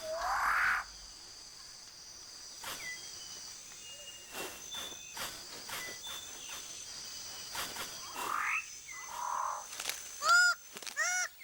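Forest birds calling over a faint high chirring of insects. A rising call opens it and another comes about eight seconds in. Near the end a bird starts a run of short, arched, nasal calls, about two a second.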